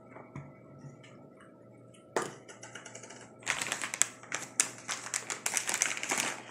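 Crinkling of a snack bag of chickpea puffs being handled and opened: a sharp rustle about two seconds in, then dense, crackly crinkling from the middle on.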